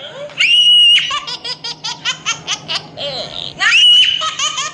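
High-pitched laughter, a long squeal followed by a quick run of short ha-ha-ha bursts, heard twice.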